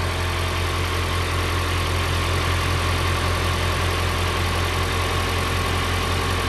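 Farm tractor engine running steadily at low speed, a deep, even hum.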